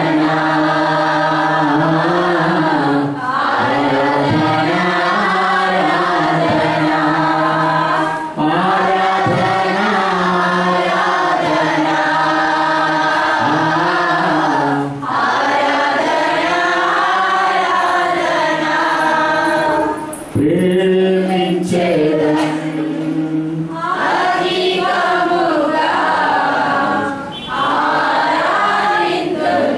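Church congregation singing a Christian worship song together, in long held phrases with a short break every few seconds.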